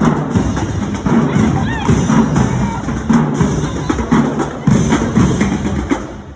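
Marching band playing, brass over a drum line with bass drum hits; the sound thins out near the end.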